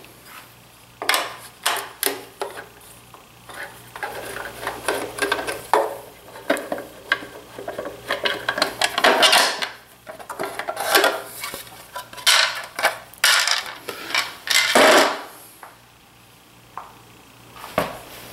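Hand tools working the screws and removing the plastic chain-drive side cover of a DeWalt DW735 planer: irregular clicks, clinks and rattles of metal and plastic, which thin out in the last few seconds.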